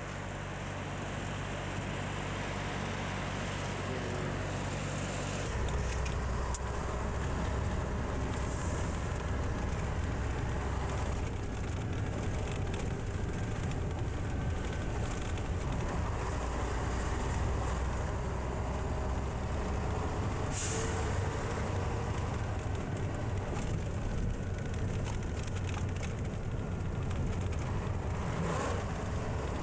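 Volvo F12 truck's diesel engine running, heard from inside the cab as the truck drives. The low engine sound grows louder about five seconds in, and there is a short, sharp hiss about twenty seconds in.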